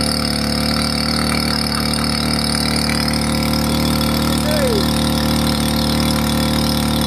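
Small petrol engine of a floating water pump running steadily at constant speed while it pumps water out through a long hose.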